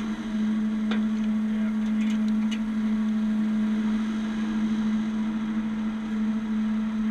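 Heavy-duty wrecker's engine and hydraulics running at a steady, unchanging hum during a recovery. A few light metallic clicks from the rigging are heard over it.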